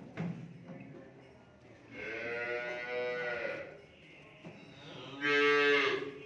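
Cattle mooing twice: a long call that rises and falls about two seconds in, then a shorter, louder one near the end.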